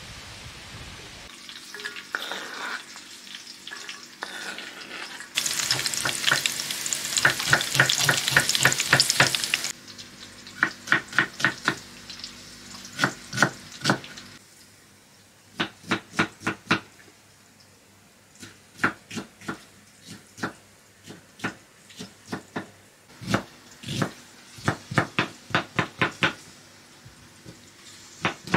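Food frying in a pan: loud sizzling for about four seconds, then quieter, while a spoon stirs and scrapes against the pan in many short, quick strokes. About halfway through the sizzle dies down and only the spoon strokes go on.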